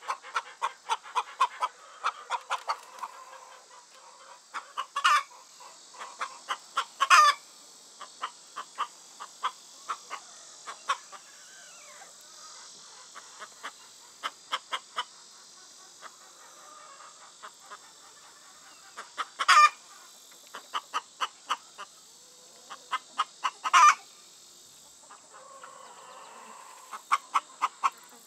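Bird calls: runs of short, quick clucks, about four a second, broken by a few louder, longer calls, over a steady high hiss.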